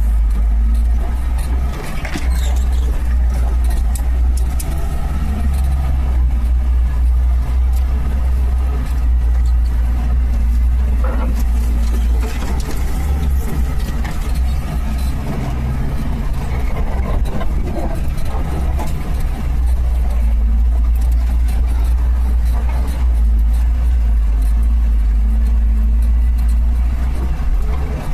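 Suzuki Samurai under way, its engine and drivetrain running with a steady low rumble.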